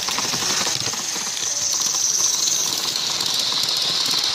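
Steady hiss of steam from a miniature-railway steam locomotive, with the rumble and light clicking of freight cars rolling past on the track.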